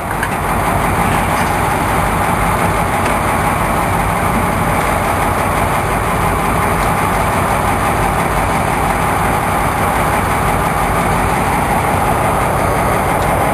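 Charter fishing boat's engine running steadily, a constant low hum under an even rush of noise.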